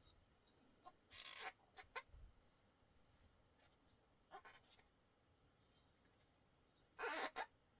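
An alcohol pad scrubbing against the edges of disassembled knife parts: a few short rubbing strokes, the loudest pair near the end.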